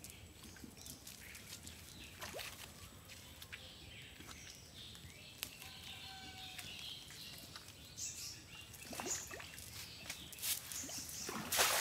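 Quiet pond-side ambience with the light rustle and clicks of a cast net being gathered and a few bird calls. Near the end there is a loud, brief splash as the cast net is thrown and lands on the water.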